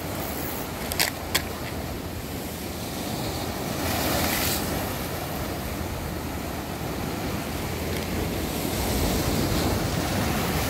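Surf breaking and washing over the rocks of a jetty, with a larger wash about four seconds in and wind on the microphone. Two sharp clicks about a second in.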